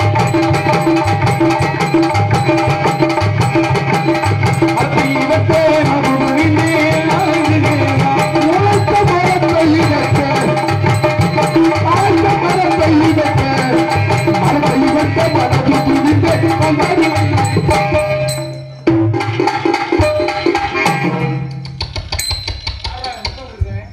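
Accompanying music for a Tamil stage drama: a two-headed hand drum beating a steady rhythm under a held melody. It breaks off about three-quarters of the way through, and quieter, broken sounds follow.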